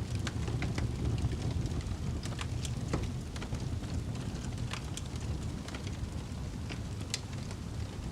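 Wood fire burning with a steady low rumble and irregular sharp crackles and pops, a louder pop about three seconds in and another near seven seconds.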